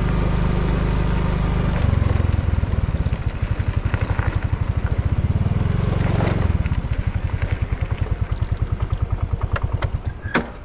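Small motorcycle engine running steadily while riding, changing after about two seconds to a slower, evenly pulsing beat as the bike slows, then a sharp click near the end as it pulls up.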